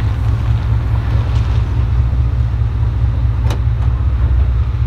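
1993 Chevrolet 1500 OBS pickup driving along, its engine and exhaust a steady low sound, with one sharp click about three and a half seconds in.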